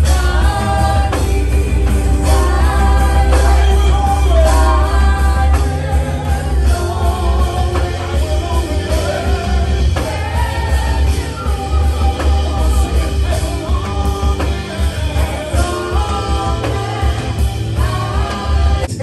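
Church worship music: singers on microphones over band accompaniment with a strong bass line.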